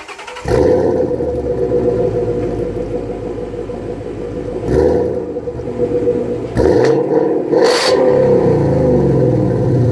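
2017 Ford Mustang GT's 5.0 V8 through Flowmaster exhausts starting up about half a second in, on freshly cleaned battery terminals, and settling into an idle. In the second half the throttle is blipped a few times, the revs falling back after each.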